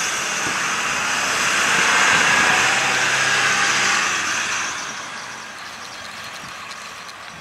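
A road vehicle passing by: a steady rushing noise with a low hum under it, swelling to its loudest about two seconds in and fading away by about five seconds.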